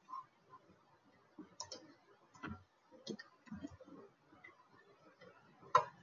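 Computer keyboard typing: faint, irregular keystroke clicks with short gaps between them, the sharpest one near the end.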